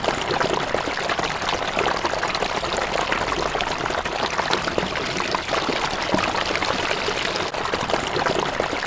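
Water running steadily, a continuous splashing trickle.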